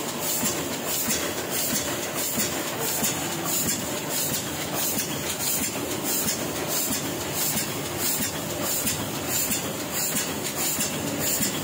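Sheet-fed offset printing press running, a steady mechanical clatter with a regular beat about twice a second as sheets are fed and printed.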